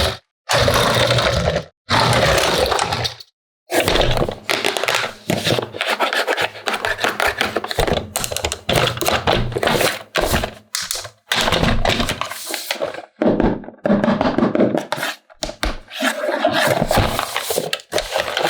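Plastic toy parts and packaging being handled: scraping, rustling and knocks in quick irregular bursts, broken by several abrupt cuts to silence.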